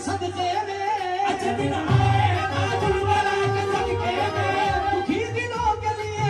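Live qawwali music: a harmonium holding its melody over a steady tabla beat, with a voice singing long, wavering notes.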